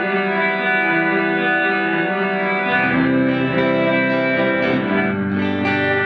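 Electric guitar played through a Fender Reflecting Pool delay and reverb pedal: a chord rings on in a long wash of reverb. About three seconds in, lower notes come in and fresh plucked notes start ringing over the tail.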